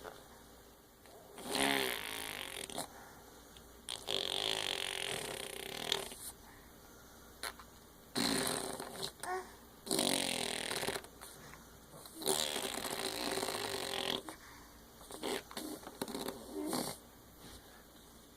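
A sleeping baby snoring: about six noisy breaths, each one to two seconds long, with short quiet gaps between them.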